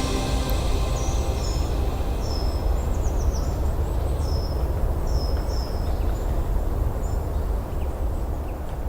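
Steady rushing roar of a waterfall, with a small bird calling over it in a quick series of short, high, down-slurred notes that fade out past the middle.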